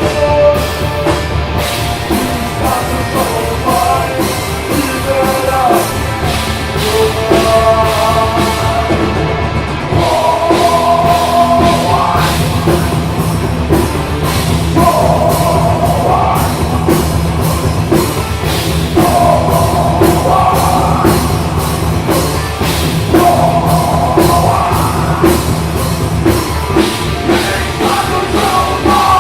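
Live heavy rock music: a band playing at full volume with a driving drum kit and a loud sung vocal line in repeated phrases.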